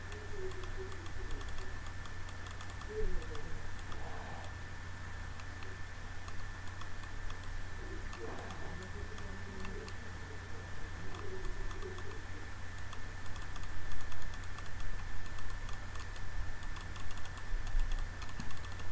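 Light, irregular clicking of a computer mouse and keyboard, growing denser in the second half, over a steady low electrical hum.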